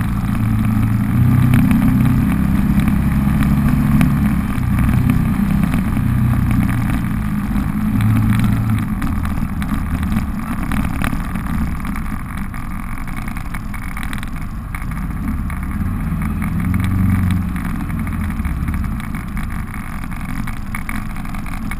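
Can-Am Maverick side-by-side's V-twin engine running at low speed, its low note rising and falling with the throttle.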